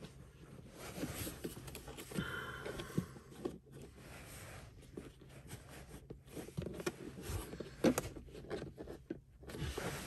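Plastic pry tool levering at a tight Tesla Model 3 center-console trim panel: plastic scraping and rubbing with scattered clicks, a brief squeak about two seconds in and a sharper click near eight seconds in, as the panel's clips resist.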